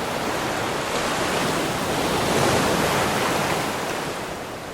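Waves washing: a steady rush of water that swells to a peak midway and then fades away.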